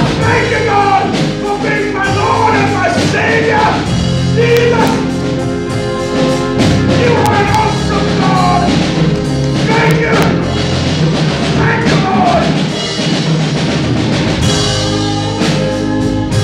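Band music with a singing voice, drum kit and sustained chords, a worship song.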